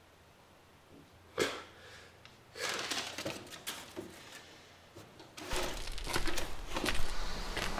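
Handling noises from someone working with objects at a bench: a single sharp knock about a second and a half in, then rustling and small clattering that grow louder near the end, with a low hum coming in underneath.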